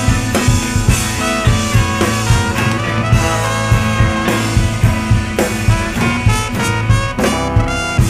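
Live band playing swing-style music with brass (trumpet and trombone) over a drum kit keeping a steady beat, with a quick flurry of notes near the end.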